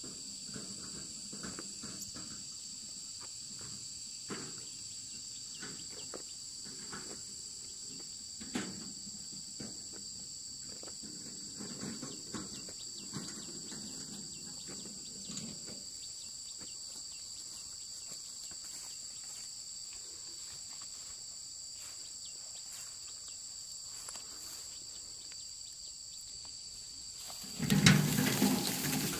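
Steady, high-pitched insect chorus holding two even tones, with scattered soft rustles and light knocks. Near the end comes a sudden, much louder burst of rustling and thumping close by.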